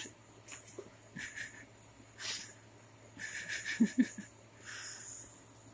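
Two cats play-fighting in a plastic milk crate: soft scuffling and rustling in several short bursts, with a brief low sound about four seconds in at the loudest moment.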